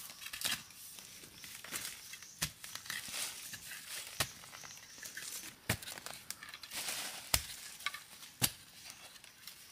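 Footsteps in sandals crunching through dry leaf litter, the leaves crackling and rustling continuously, with a handful of sharp snaps or knocks scattered through.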